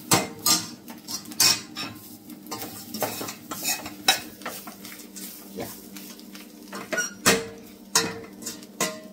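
Steel spoon stirring and scraping a dry-roasting coconut, onion and spice mixture in a stainless steel pot, clinking against the pot's sides and bottom at irregular intervals, over a faint sizzle.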